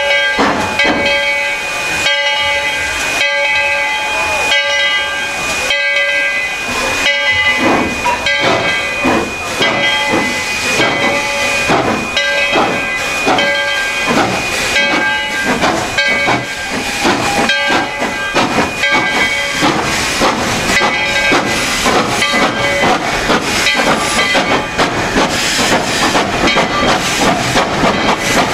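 Narrow-gauge steam locomotive working, its exhaust chuffs steadily quickening as it gets under way. Its whistle sounds a chord of several notes in a series of blasts during the first half.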